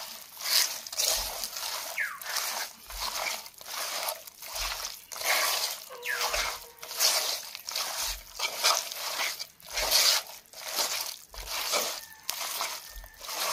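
Hands squishing and kneading raw chicken pieces with spice paste and mustard oil in a clay pot, a wet squelching stroke roughly once a second.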